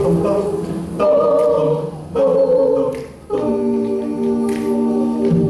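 A cappella vocal ensemble singing held chords without words, the harmony moving to a new chord about every second.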